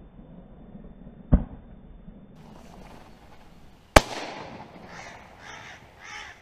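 Two shotgun shots from a double-barrelled shotgun, about two and a half seconds apart, the second one louder. After the second shot, crows caw several times.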